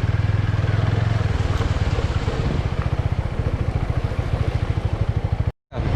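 Motorbike engine running with a steady, rapid beat of firing pulses, a little louder in the first second. The sound cuts out completely for a moment near the end.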